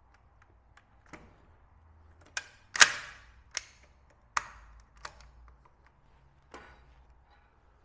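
Handling of a partly stripped DSS PZD556 machine gun: a series of sharp clicks and clacks from its parts, about seven in all, the loudest a little under three seconds in.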